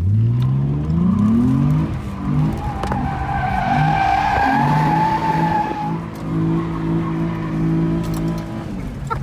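A car's engine revving up repeatedly, rising in pitch, while its tyres squeal for a few seconds as it slides across the pavement. The engine then holds steady revs and eases off near the end.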